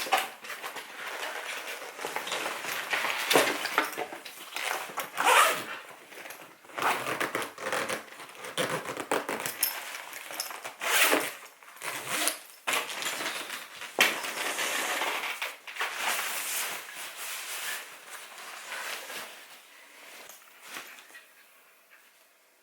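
Irregular rustling, crinkling and clattering of gear being handled, with zipper-like strokes and a few sharper knocks. It tails off near the end.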